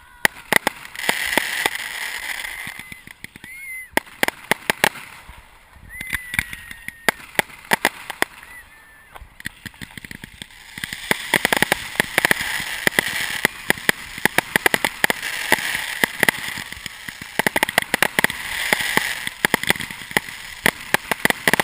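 Fireworks display heard up close at the firing site: many sharp crackling reports and bangs over a hiss. A few short whistles sound about 3, 6 and 9 seconds in, and the crackling turns dense from about 11 seconds on.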